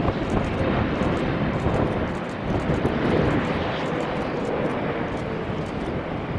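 Wide-body jet airliner landing: steady jet engine noise with a faint whine that slowly falls in pitch through the middle.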